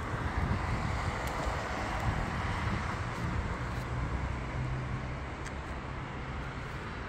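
Road traffic noise: a motor vehicle going by, its tyre and engine noise easing off, with a low steady engine hum in the second half. Wind buffets the microphone.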